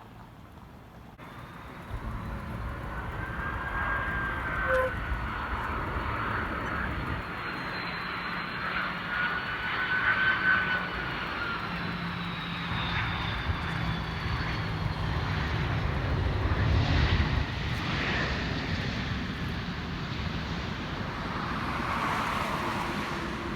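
Jet airliner's engines passing close by: a steady rumble sets in about two seconds in, with a high whine that slowly bends in pitch over it.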